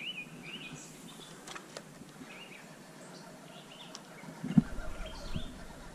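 Small birds chirping, with short high notes repeated here and there over a faint outdoor hiss. A single thump comes about three-quarters of the way in.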